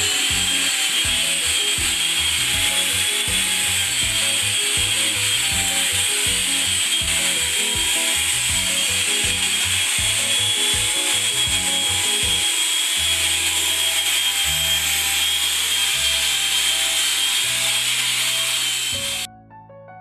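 Long-reach drywall sander running against a gypsum plaster wall: a steady whirring hiss with a high whine, with background music underneath. The sander sound cuts off suddenly near the end, leaving only the music.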